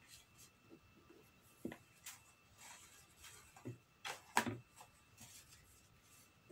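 Faint scraping and small knocks of a spoon stirring a homemade mixture in a bowl, with a sharper knock a little past the middle.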